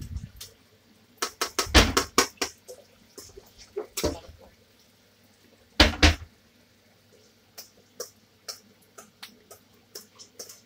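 A steel bowl and spoon clattering and scraping against each other and the pan rim as marinated chicken is tipped out and scraped into a pan of masala. The clatter comes in a quick run of sharp knocks about two seconds in, a loud pair near six seconds, then lighter taps.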